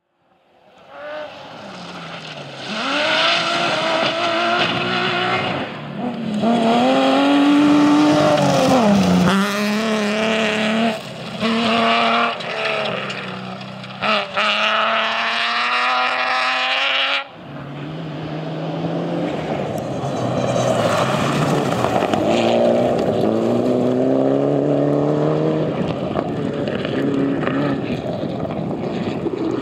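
Rally cars at full throttle on a gravel stage, the engine note rising through each gear and dropping at every shift. About 17 s in it cuts off suddenly, and a second car's engine takes over, again climbing and dropping through several gear changes.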